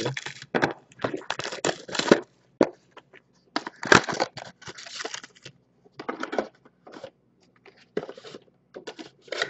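Foil-wrapped trading card packs and stacks of cards handled on a table: irregular rustling and crinkling in short bursts with brief pauses, loudest about four seconds in.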